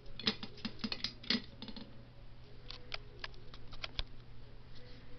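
Irregular metallic clicking and rattling from a ceiling fan's pull chain and pull-chain switch being handled, with a quick cluster of clicks early on, then sparser ones. A steady low hum runs underneath.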